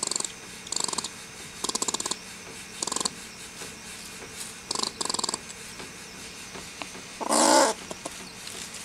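Eastern gray squirrel caught in a wire live trap, chattering angrily in short bursts of fast clicking, about five bursts over the first five seconds. A louder, longer sound with a wavering pitch comes about seven seconds in.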